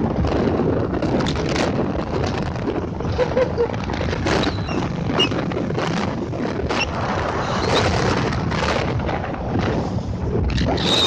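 Wind buffeting the microphone on a motorboat running over waves, with the boat's engine and rushing water under it. Many short thumps and gusts break through a loud, steady noise.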